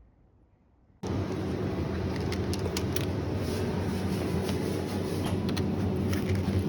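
Near silence for about a second, then a sudden cut to a steady vehicle hum, low and droning with a few scattered clicks.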